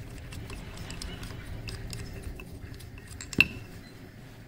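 Small metal clicks and handling noise as a black knurled part is twisted off an FX Impact MK2 air rifle by hand, with one sharp, ringing metal clink about three and a half seconds in.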